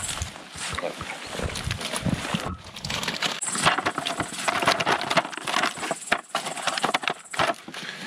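Water draining and dripping from a keepnet lifted out of the river. Then the catch of small bream and roach is tipped from the net into a plastic bucket, and from about halfway through the fish flap and slap in a rapid clatter.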